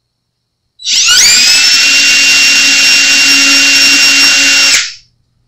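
Cordless drill spinning up and running at a steady speed for about four seconds, drilling into a bass guitar's maple headstock, then stopping abruptly.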